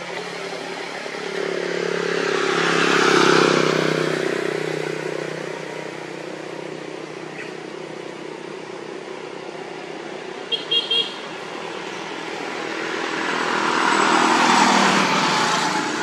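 Two motor vehicles pass one after the other on the road, their engines rising and fading: the first passes about three seconds in, the second near the end. Three short high beeps sound between them.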